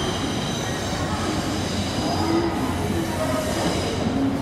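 Iyotetsu 700 series electric train pulling slowly into the platform: its wheels squeal with thin high tones on the curve over a steady low rumble.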